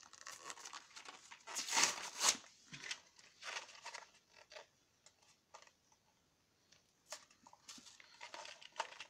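Toy packaging being torn and crinkled open by hand in irregular rustling bursts, loudest about two seconds in, with a brief lull in the middle.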